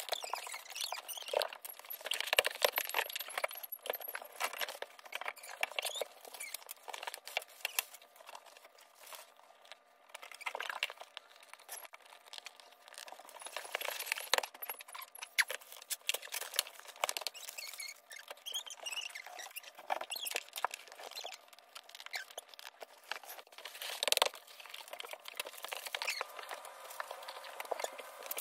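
Scraping, rustling and light clicks of drawer boxes being handled and pushed into a metal-framed dresser during assembly, with one sharper knock near the end.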